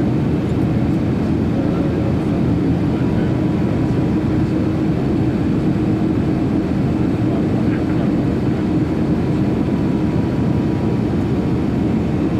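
Steady cabin roar of a Boeing 757-300 in flight: the engines and rushing air make a constant low-pitched rumble with a faint steady hum above it.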